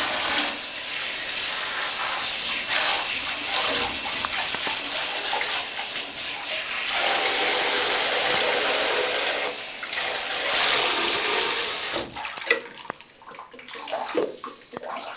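Bath tap running hard into a tub of water as a steady rush that stops abruptly about twelve seconds in, then small splashes and sloshing as a hand moves in the water around a bathing puppy.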